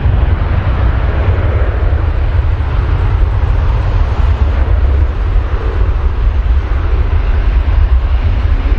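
Airbus A350-941's Rolls-Royce Trent XWB turbofan engines at takeoff thrust: a loud, steady jet roar with a deep rumble as the airliner rolls, lifts off and climbs.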